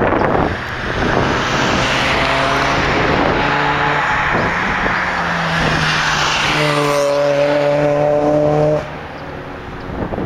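An aircraft passing close by on take-off or landing: a loud engine noise carrying a few steady low tones, with a sweep that falls in pitch as it goes by. The level drops sharply near the end.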